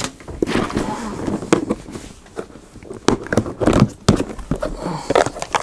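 Craft supply boxes being rummaged through and handled: irregular knocks, clicks and rustling as boxes are picked up, moved and set down.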